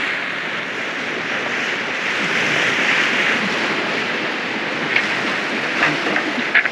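Steady rush of wind and waves as a Catalina 387 sailboat moves under sail through choppy water, with a few short, sharp ticks in the last two seconds.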